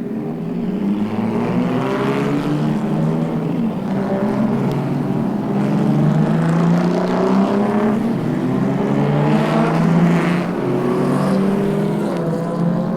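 Car engines at speed, several of them, their pitch rising and falling as they rev and pass one after another.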